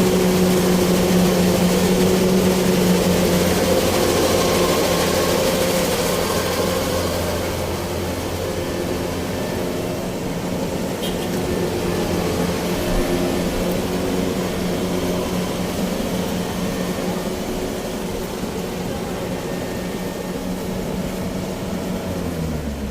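Kubota DC-93 combine harvester's diesel engine running steadily with a constant drone. The engine note drops right at the end.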